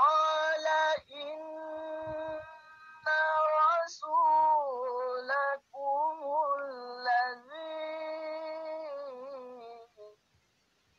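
A single high voice chanting Quran recitation melodically over a video call, in several phrases of long held notes with gliding ornamental turns.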